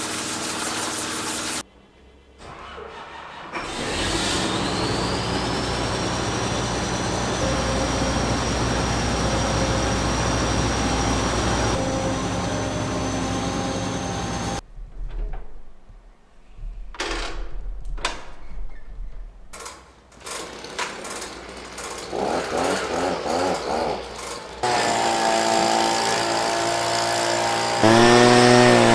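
A machine engine running, with a high whine that rises about four seconds in and then holds steady. Later come irregular clattering noises, and near the end an engine revs up.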